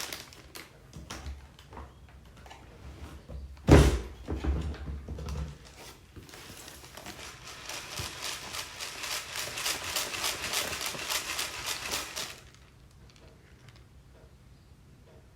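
A loud thump nearly four seconds in, then a dense, rapid rattle of many small beads clicking for about six seconds that stops abruptly.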